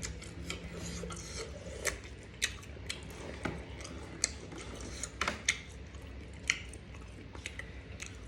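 Eating sounds close to the mic: chewing, with scattered sharp clicks and taps every second or so.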